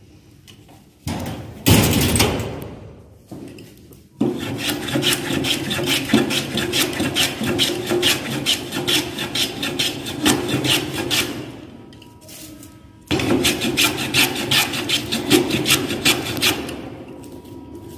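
Jack plane shaving a small wooden block by hand: a couple of short, loud scrapes, then two long runs of rapid rasping strokes with a short break between them.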